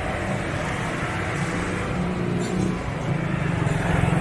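Busy street traffic: small engines of motorcycles and motor rickshaws running close by, over a general traffic hum, growing louder near the end.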